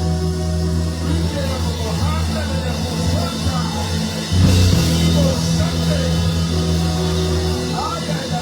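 Live church band playing under a prayer: held low chords with drums, and a crash about halfway through.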